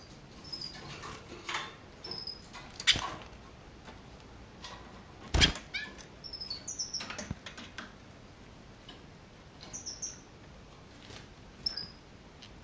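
Caged red siskins giving scattered short, high chirps, with a few sharp knocks in between, the loudest about five and a half seconds in.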